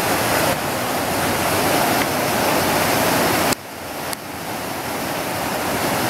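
Fast river rapids running over boulders, a steady rush of white water. About three and a half seconds in the level drops suddenly, then builds back up.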